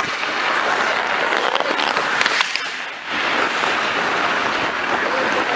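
Ice-hockey skate blades scraping and carving across rink ice, a loud steady hiss, with a few sharp clicks a little past two seconds in and a short lull near three seconds.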